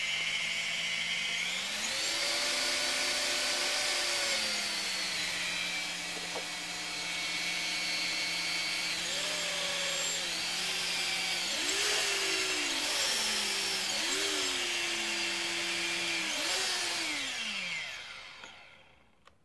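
The quadcopter's four brushless motors spinning with no propellers fitted, run from the transmitter's throttle stick: a whine that steps up and down in pitch several times as the throttle is moved. Near the end it glides down and stops as the throttle is closed.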